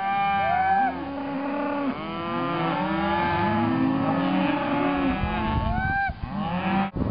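A herd of cattle mooing, many calls overlapping, each one rising then falling in pitch. A low rumble joins in about five seconds in.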